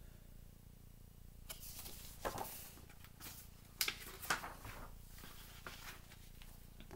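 Light rustles and soft taps of a picture book being handled and its pages turned: a handful of short, separate sounds starting about a second and a half in, over faint room hum.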